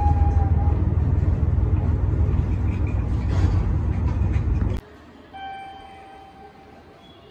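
Low, steady rumble of an ET122 diesel railcar heard from inside its cab at the platform. It cuts off abruptly about five seconds in, giving way to quiet hall ambience with a short steady electronic tone.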